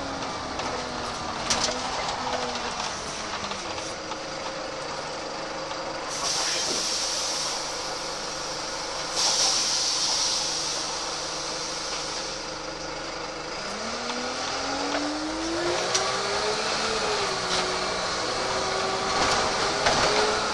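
VDL SB120 Wright Cadet single-decker bus with its Cummins diesel, heard from on board. The engine note falls as the bus slows, then runs steady, with two loud hisses of compressed air from the air brakes. Near the end the engine climbs in pitch under acceleration, with a short dip at a gear change.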